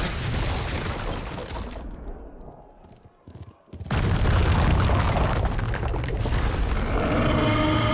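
Cinematic battle booms: a heavy deep boom with debris fading over about two seconds, a few sharp cracks, then a second loud boom about four seconds in that rolls on. Music tones come in near the end.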